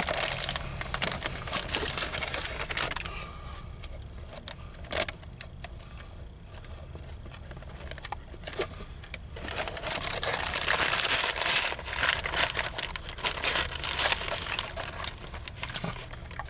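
Paper sandwich wrapper crumpling and crackling as it is handled, in two spells: one at the start and a longer one from about halfway through, with a quieter stretch between.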